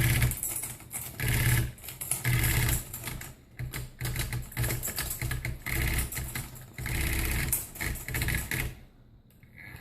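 Electric typewriter typing: runs of rapid clattering key strikes over a low mechanical hum, stopping about a second before the end.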